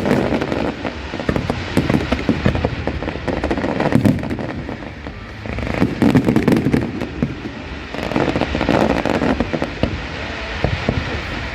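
Aerial firework display: shells bursting and crackling in rapid, dense volleys. The volleys come in waves, with a brief lull about five seconds in.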